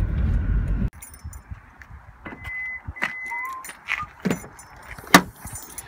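Road noise inside a moving car that cuts off about a second in. Then keys jangle and sharp clicks and knocks come from around the car's rear hatch, the loudest about five seconds in, with two short high beeps near the middle.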